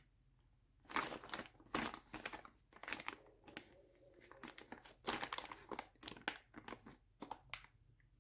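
Packaging crinkling and rustling in irregular bursts as an item, the stereo's wiring harness, is unwrapped from it. The rustling comes in two main spells, about a second in and again about five seconds in.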